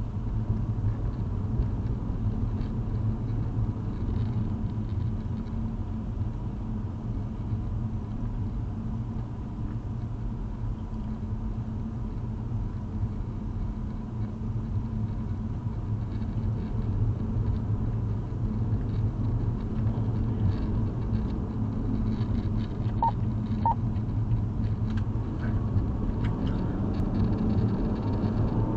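Steady low rumble of a car driving at freeway speed, heard from inside the cabin: tyre and road noise with the engine underneath.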